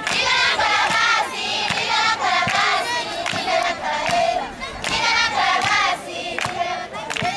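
A large group of schoolgirls singing together in chorus, clapping their hands along with the song.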